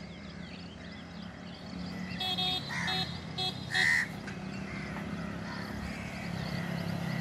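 Motorcycle and scooter engines on a wet road, growing louder toward the end as a scooter comes closer. Several short horn beeps sound about two to four seconds in.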